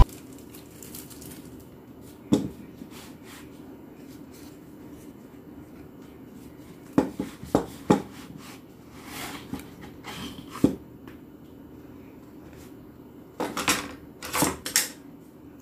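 A cardboard album box being handled and opened: scattered light knocks and clicks with faint rustling. There is one knock about two seconds in, a cluster of sharp clicks around seven to eight seconds, and a last flurry near the end as the contents slide out of the box.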